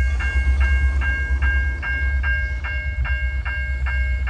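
Railroad crossing bell ringing steadily, about two and a half strokes a second, as the crossing signals warn of an approaching train. Under it runs a loud, low, steady rumble.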